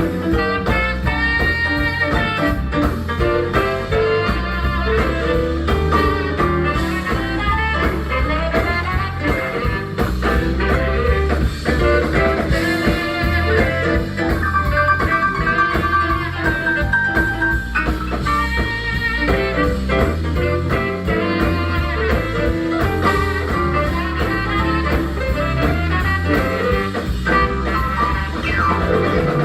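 Live jazz band playing an instrumental, with melodic lines over a steady bass and drum kit.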